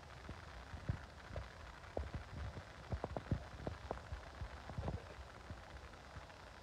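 A run of soft, irregular knocks and thumps over a low rumble, thickest in the middle few seconds.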